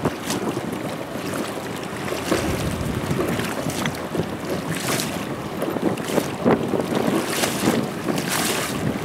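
Wind gusting on the microphone, strongest a few times in the second half, over the steady low rumble of a Sea-Doo personal watercraft running slowly on choppy water.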